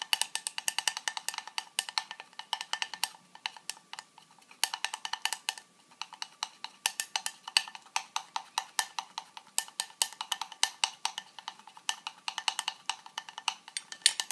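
A stirrer clinking rapidly against the wall of a glass tumbler as a thick polyvinyl alcohol and phosphoric acid gel is mixed, several ringing clinks a second. The stirring pauses briefly about four seconds in and again near six seconds.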